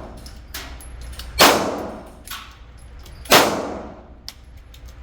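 Smith & Wesson M&P 2.0 pistol fired twice, about two seconds apart. Each shot is a sharp report with a long echoing ring-out, and there are fainter sharp knocks in between.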